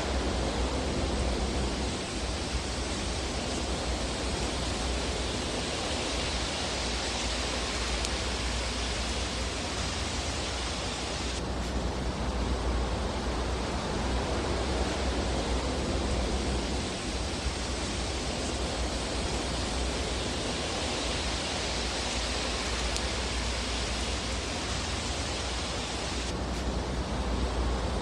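Fireplace fire ambience: a steady rushing hiss over a low rumble, without distinct crackles. The hiss changes abruptly twice, about eleven seconds in and near the end.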